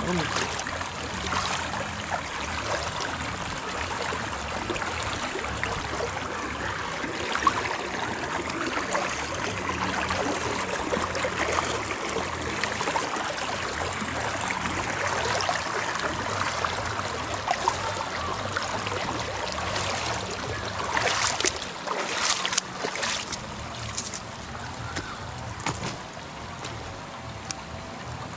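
Steady rush of creek water flowing over rocks, with a few sharp knocks or splashes about three quarters of the way through.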